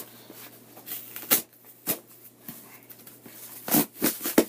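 A shipping package being opened by hand: irregular sharp rips, crinkles and handling noises of cardboard and packing material, several close together near the end.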